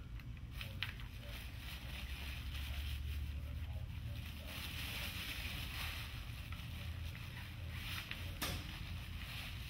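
Sailcloth and paper backing rustling and crinkling as hands press and smooth them flat, over a low steady hum.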